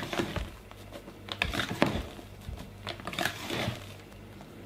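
Wire whisk folding whipped cream into strawberry purée in a plastic mixing bowl: uneven wet strokes through the cream, with light clicks of the wires against the bowl.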